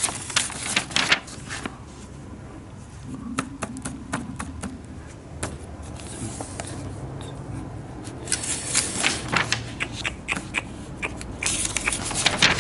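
Large paper instruction sheet rustling and crinkling as it is handled and folded over, in three bursts of crackle: at the start, about two thirds of the way through, and near the end.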